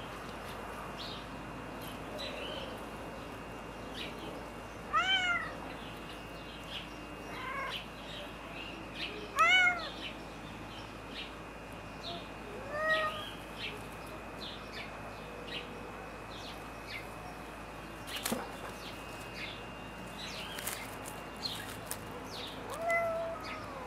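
A white Turkish Angora cat meowing about five times, each meow rising then falling in pitch, spread through the stretch with the loudest about ten seconds in.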